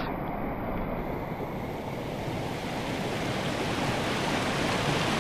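Rushing floodwater of a rain-swollen mountain stream pouring across a hiking trail, a steady rush that grows brighter about a second in and a little louder towards the end.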